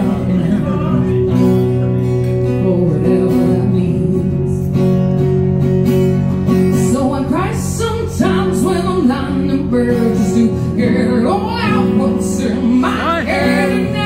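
Live acoustic song: a woman sings into a microphone over an acoustic guitar, her sung lines clearest in the second half.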